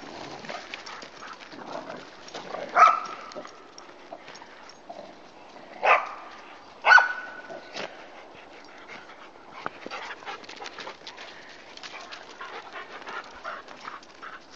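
A dog barking: three short, sharp barks about three, six and seven seconds in, over the steady crunching and rustling of walking on a gravel track.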